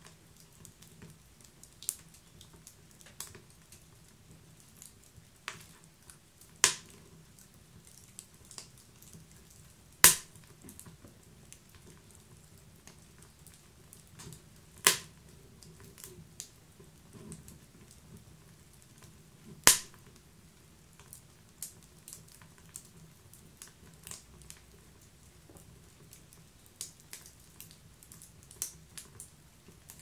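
Wood fire burning: a low steady rustle with scattered small crackles and several sharp, louder pops a few seconds apart, the loudest about ten seconds in.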